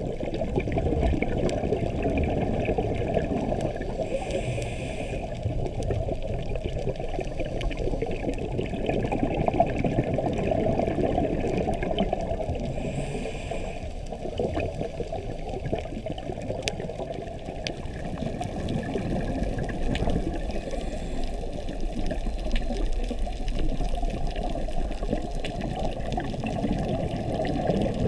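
Muffled underwater sound of a scuba diver's regulator, heard through the camera's waterproof housing: a steady bubbling and gurgling of exhaled air, with a brief hiss twice, about four seconds in and again about thirteen seconds in.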